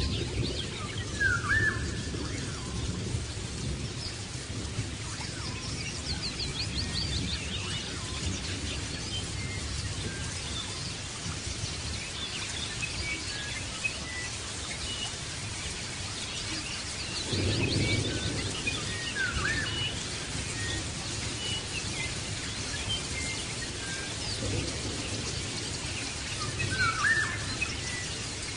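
European goldfinch singing: scattered high twittering notes, short trills and quick chirps. A steady low background rumble runs underneath and swells briefly about two-thirds of the way through.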